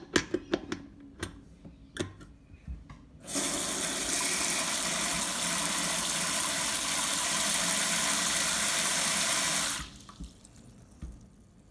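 A few knocks and clicks, then a kitchen tap runs water steadily into the sink for about six seconds and is shut off. This is a test of the newly fitted strainer basket washer for leaks.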